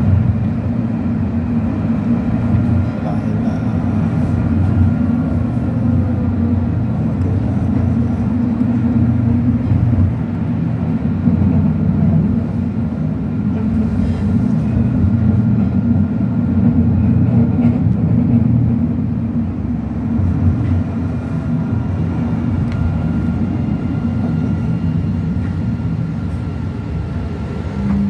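Tram running along its line, heard from inside the car: a steady low rumble of wheels on rails with a faint steady motor whine above it. Near the end it eases off as the tram pulls into a stop.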